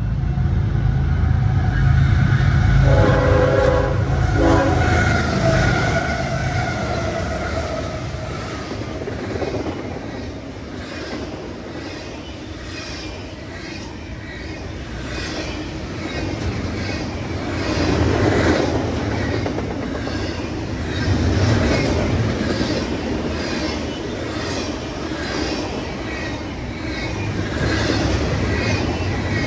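A train running through the station: a short horn blast about three seconds in over a heavy low rumble, then the steady, rhythmic clickety-clack of wheels over rail joints as the cars roll by.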